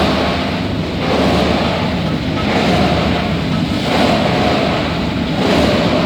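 PET bottle washing and grinding plant machinery running: a loud, steady churning noise that swells and eases about every second and a half.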